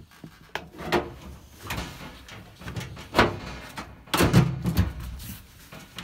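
Metal front panel of a washing machine knocking and clunking as it is hooked onto its teardrop clips, slid up and pushed into place against the cabinet. The loudest clunks come about three seconds in and in a cluster just after four seconds.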